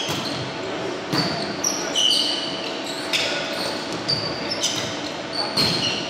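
Volleyball rally on a hardwood gym floor, echoing in the large hall: the ball is struck with sharp smacks about once a second, between short high squeaks of sneakers and the thud of feet on the floor.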